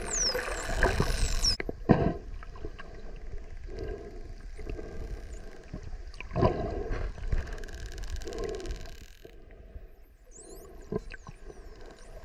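Bottlenose dolphins whistling underwater: several looping, rising and falling whistles in the first second and a half and again near the end, over dull water noise and scattered low thuds.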